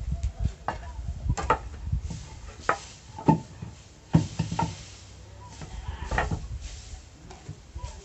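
Sawn wooden boards and log slabs knocking and scraping against each other as they are moved and stood upright in a stack: a string of irregular wooden knocks.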